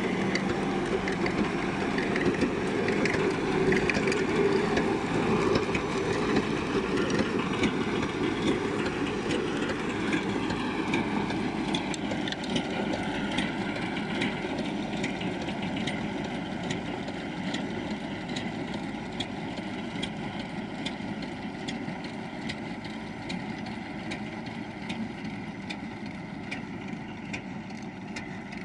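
Landini 4-070 tractor's diesel engine running as it pulls a Pöttinger manure spreader at work, slowly fading as the tractor drives away, with a constant light clattering and ticking from the spreader.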